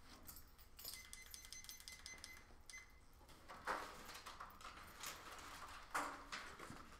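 Quiet room tone with a faint thin high tone for about two seconds, then two brief clatters of something being handled, about two seconds apart.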